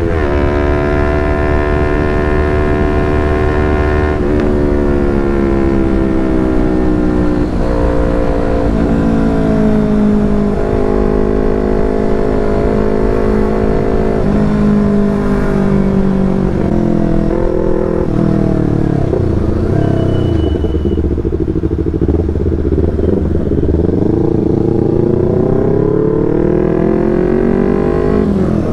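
Yamaha R25 parallel-twin engine through a Proliner TR1R short aftermarket exhaust, running under way with its pitch drifting down, changing abruptly several times, then climbing steadily near the end.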